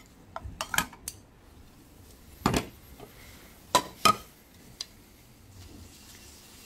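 White ceramic plates clinking and knocking as they are set down on a stone countertop: a few light taps in the first second, a louder knock about two and a half seconds in, two ringing clinks about four seconds in, and a light tap near five seconds.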